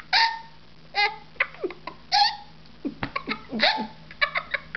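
A young girl laughing in several short bursts with pauses in between.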